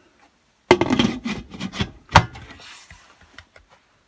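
A burst of knocks and rubbing clatter starting about a second in, with one sharp knock a little past the middle, then a short hiss and a few light ticks.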